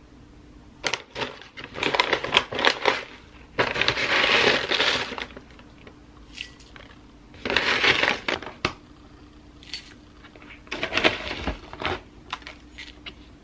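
A plastic granola bag rustling and crinkling as dry granola is shaken out of it into a glass bowl, in four bouts of crackly noise with small clicks of falling pieces.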